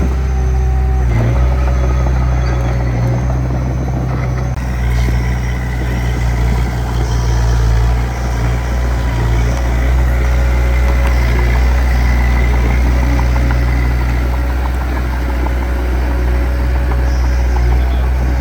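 Heavy-equipment diesel engine running steadily, a loud low drone with small rises and dips in level.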